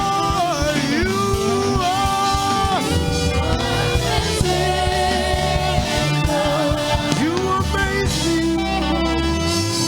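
Gospel worship song with a live band: a voice sings long held notes that slide between pitches, over steady bass and drums.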